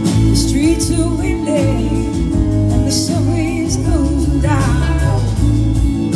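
Live band playing a slow blues-soul song: drums, bass and guitars, with a gliding, wavering lead melody over them.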